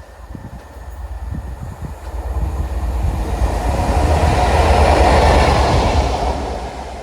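Train passing through a station, its rumble and rail noise building to a peak about five seconds in and then easing off.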